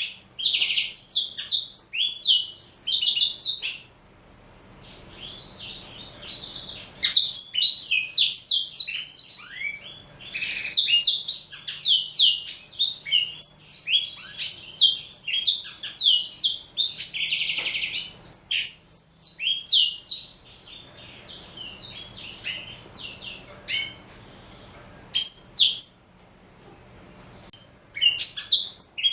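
Male black-throated canary (blackthroat) singing: long runs of fast, high twittering notes, broken by a few short pauses.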